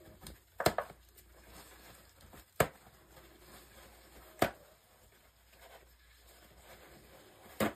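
Four sharp clicks, roughly two seconds apart, over a faint low room hum.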